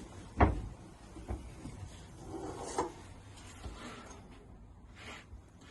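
Handling noises in a steam locomotive's cab while a warming fire is lit in the firebox: one sharp knock about half a second in, then a few small clicks and faint rubbing and scraping.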